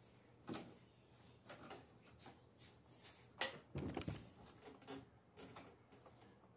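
Scattered light clicks and knocks of objects being handled, with one sharp click about three and a half seconds in followed by a brief low thump.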